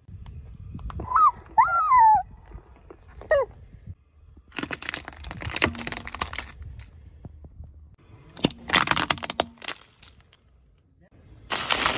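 Objects being crushed under a car tyre: high squeals that rise and fall about a second in, then several separate bursts of crunching and crackling over a low rumble.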